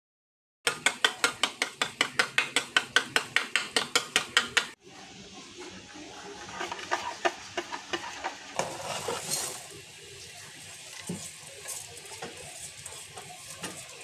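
Yogurt being beaten in a stainless steel bowl: a quick regular clicking, about five strokes a second, for the first four seconds. It then gives way to a softer, steady sizzle with scattered clinks of cookware.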